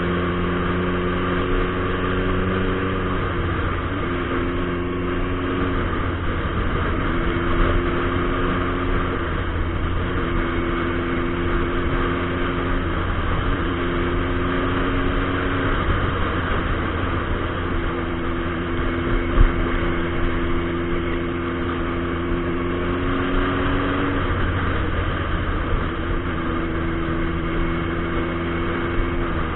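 Turbocharged 2006 Suzuki Hayabusa inline-four running at steady road speed. Its tone holds for a few seconds at a time and breaks off between, under a constant rush of wind on the helmet camera.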